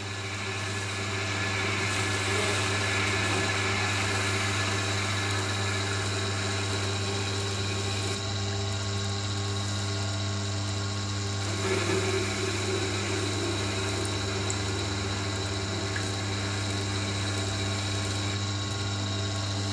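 Tormek T7 wet grinder's motor humming steadily while a knife blade is held against its slowly turning water-cooled grindstone. A grinding hiss of steel on stone swells and fades as the blade is worked.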